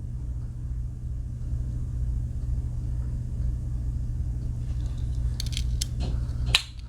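Steady low hum, with a few light metallic clicks from the Swiss Army knife's tools being handled about five and a half seconds in and again near the end. The hum cuts off abruptly just after the last click.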